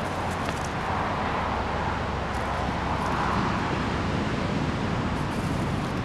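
Steady road traffic from the Pacific Coast Highway, with passing cars swelling and fading a couple of times.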